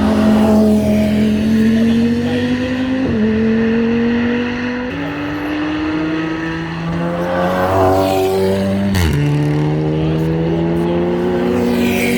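GT3 race car engine under full acceleration, its pitch climbing steadily and dropping sharply at each upshift, about three seconds in and again about nine seconds in.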